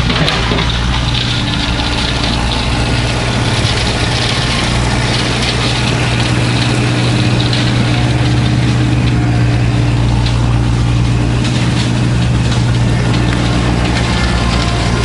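Kubota B2650 compact tractor's diesel engine running steadily.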